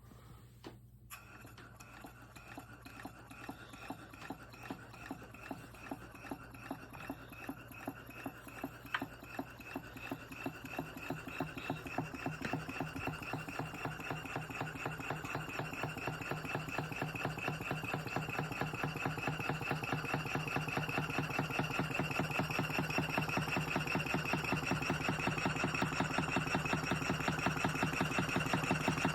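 Willcox & Gibbs chain stitch sewing machine running under power from a Sipp 1/4 HP steam engine: a fast, even clatter that speeds up and grows steadily louder as the engine comes up to speed.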